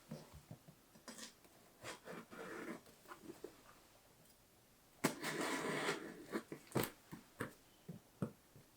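A cardboard box being handled and opened: scattered clicks and soft rustles of packaging, with a longer scraping rustle about five seconds in.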